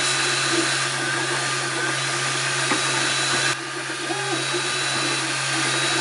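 MakerBot Replicator 2 3D printer running mid-print: a steady fan hum and faint whine with the stepper motors giving short pitched whirs that change pitch as the print head moves, laying down the final top layers of the parts.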